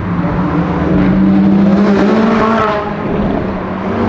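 McLaren supercars with twin-turbo V8 engines driving past at low speed. One revs up about a second and a half in, its engine note rising for about a second before dropping back.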